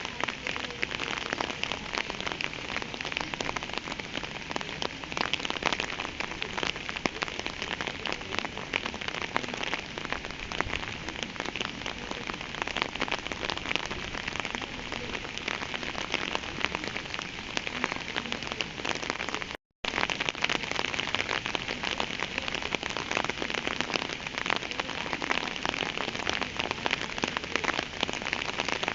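Steady rain falling on a surface, a dense patter of many small drops. It cuts out for a split second about two-thirds of the way through.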